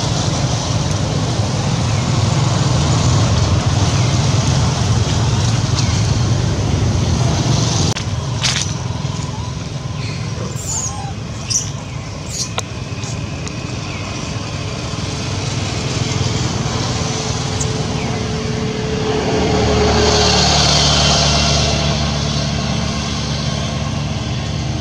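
Steady low engine rumble of background road traffic, swelling again about twenty seconds in, with a few short high chirps near the middle.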